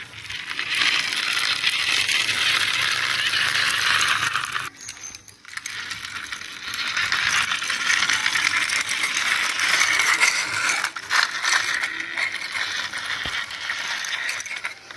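Plastic toy police car pushed by hand along a rough concrete floor, its plastic wheels and body giving a continuous gritty rattle as it rolls. The rolling stops briefly about five seconds in, then starts again and runs on.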